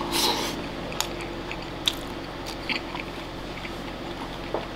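A mouthful of oyakodon (rice topped with chicken simmered in egg) is taken off chopsticks at the start, then chewed close to the microphone, with scattered soft wet mouth clicks about once a second over a steady low hum.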